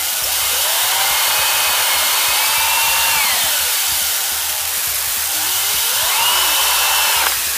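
Electric hand drill boring an angled hole into a teak apple, run twice: each time the motor whine rises as it spins up and holds. The first run winds down about three seconds in, and the second cuts off shortly before the end. A steady loud hiss lies under both.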